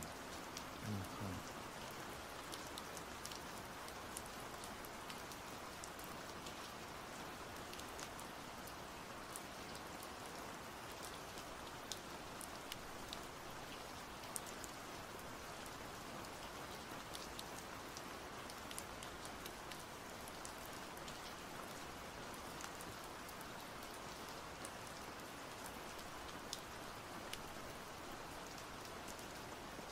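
Steady rain falling, an even hiss with scattered sharp drop ticks. A brief low voice sound comes about a second in.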